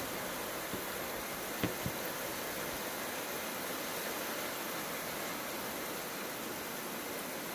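Heavy rain falling steadily on garden plants and ground, an even hiss. Two brief taps sound a little after a second and a half in.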